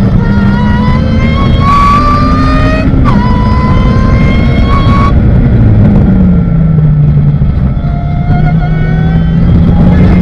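Ariel Atom's engine at full throttle heard from on board: the pitch climbs, drops sharply about three seconds in at an upshift and climbs again, then falls away about six seconds in as the car slows for a corner and runs at steadier, lower revs near the end.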